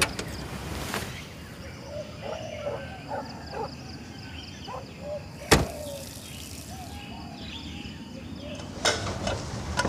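A car door shuts with a single solid thud about five and a half seconds in, over quiet outdoor background sound, with a few lighter clicks near the start and near the end.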